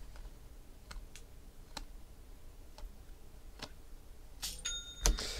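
Baseball trading cards handled and sorted by hand: a few light, separate clicks and ticks of card edges, with a sharper snap about five seconds in.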